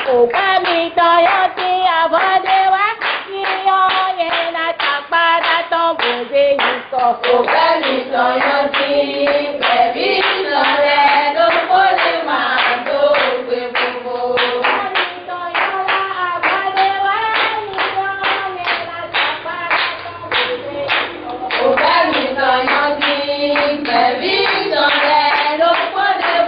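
A group of women singing together, clapping their hands in a steady rhythm.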